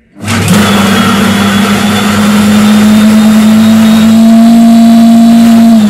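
Silvercrest Monsieur Cuisine food processor's blade motor running at high speed, chopping onion pieces in the mixing bowl. It starts abruptly, holds a steady pitch for about five and a half seconds, and begins to wind down right at the end.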